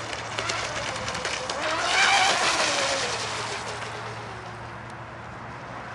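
Sigma Evo radio-controlled speedboat's engine whining as the boat passes close at speed, loudest about two seconds in, then dropping in pitch as it moves away.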